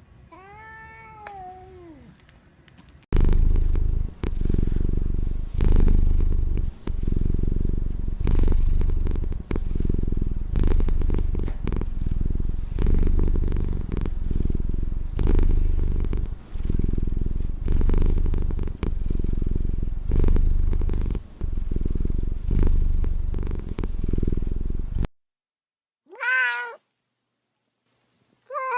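A domestic cat purring loudly, the purr swelling and dipping with each breath about once a second. A faint meow comes just before the purr, and a clear meow follows near the end after a short pause.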